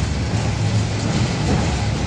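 Interior running noise of a 71-605A tram car in motion: a steady low rumble of wheels on rails and running gear, heard from inside the passenger cabin.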